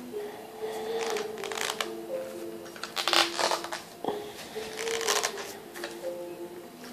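Background music of held notes stepping slowly in pitch, over bursts of rattling and clicking as the Dolica tripod's legs and leg-angle lock blocks are pushed and pulled, loudest about three seconds in.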